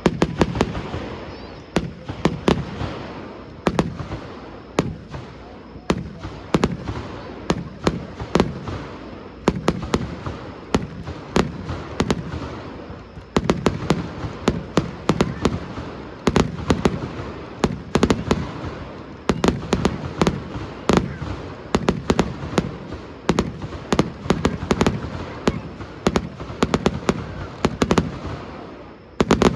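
Aerial fireworks display: a rapid, unbroken barrage of shell bursts, many sharp cracks in quick succession over repeated deep booms.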